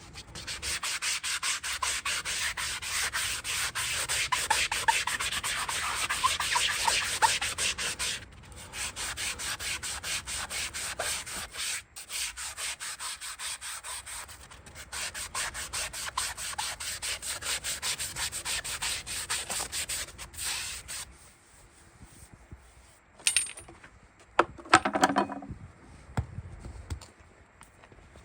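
Farrier's hand rasp scraping a horse's hoof in three long bouts of rapid strokes with short pauses between them, stopping a few seconds before the end. A few short knocks follow.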